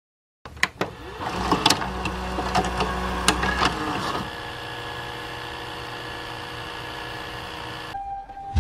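A VCR taking in and starting a videotape: clicks and mechanical clunks with a whirring for about three and a half seconds, then the steady hum and hiss of tape playback. Near the end the hiss drops away and a faint steady tone is left.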